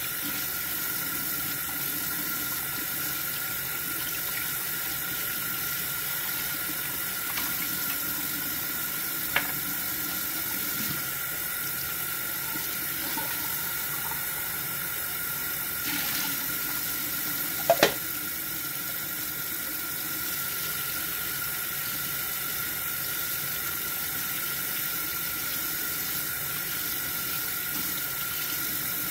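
Kitchen faucet running steadily into the sink while hands rinse a small item under the stream. A faint click about nine seconds in and a sharp double knock a little past halfway, the loudest moment, break the steady flow.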